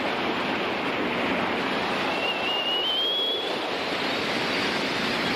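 Steady rush of wind and water noise aboard a moving boat, with wind buffeting the microphone. A brief thin whistle rises in pitch about two seconds in.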